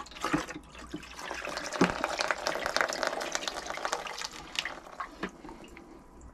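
Water condensed by an Avalla X-200 dehumidifier pouring out of its collection tank into a jug. The stream starts about a second in, runs steadily, and thins out near the end as the tank empties.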